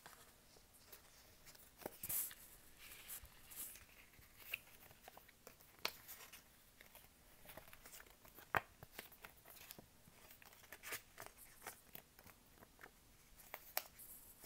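Small sheets of plastic-like mineral paper flexed and rubbed between fingers: faint crinkling with scattered crisp crackles and rustles, a few louder snaps along the way.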